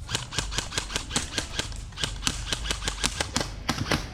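Airsoft guns firing, a rapid, irregular string of sharp snapping shots, several a second.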